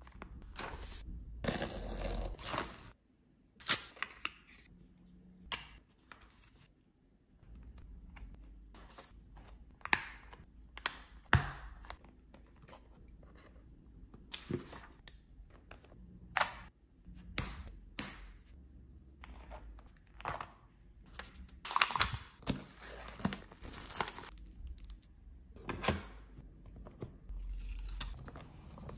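Close-up handling of a plywood pinhole camera kit being assembled: the paper bellows rustles and crinkles, and the thin wooden parts click and tap as they are pressed and fitted together. The sounds are irregular, with short rustles and scattered sharp clicks.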